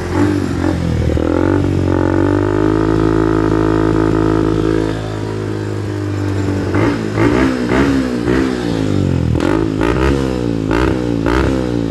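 Yamaha Sniper 150's single-cylinder four-stroke engine through an Exos X6 aftermarket exhaust, held at high revs of about 6,000 rpm for roughly five seconds. The revs then drop, and the throttle is blipped repeatedly in quick rev bursts.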